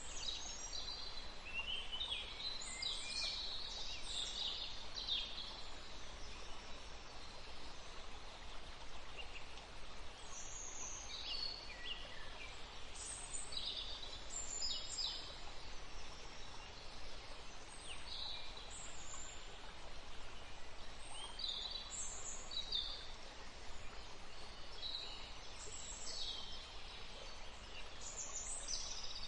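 Several songbirds chirping and singing, short high calls coming in quick clusters throughout, over a steady background hiss.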